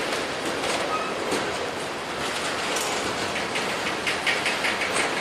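Norfolk Southern freight train cars rolling past, with a steady rumble of wheels on rail. A quick, even run of wheel clicks sets in about three and a half seconds in.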